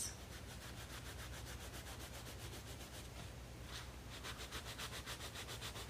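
Caran d'Ache Neocolor II water-soluble wax crayon scribbled back and forth on toothy mixed-media sketchbook paper: a faint scratchy rubbing of quick strokes, several a second. There are two bouts of strokes with a lull between them.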